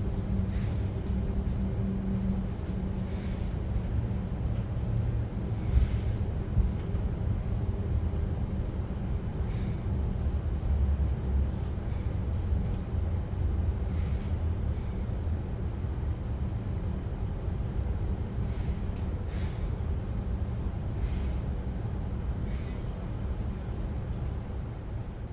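Regional passenger train running along the track: a steady low rumble with short, irregular clicks, like wheels passing over rail joints.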